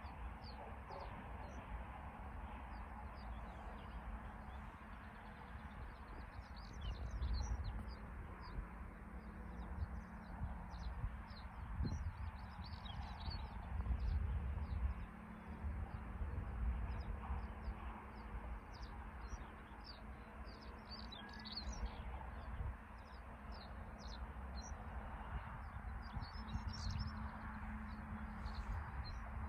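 Small birds chirping in many quick, short calls, over gusty wind rumbling on the microphone.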